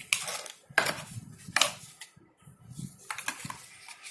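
Phone box contents and packaging being handled: a few light clicks and knocks, then a stretch of rustling near the end.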